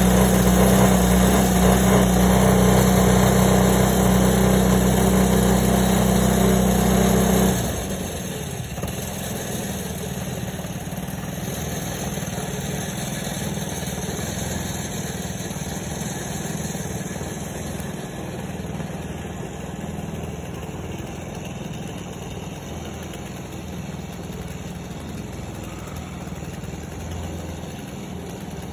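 Two-stroke chainsaw engine running steadily at high speed, then dropping suddenly about seven and a half seconds in to a quieter idle that continues.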